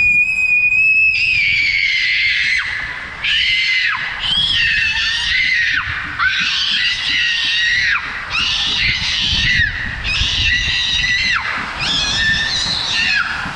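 A girl screaming in a string of long, high-pitched screams, most ending with a drop in pitch, as she rides an inner tube down an enclosed water-slide tube. Rushing water and the tube's rumble on the slide run low underneath.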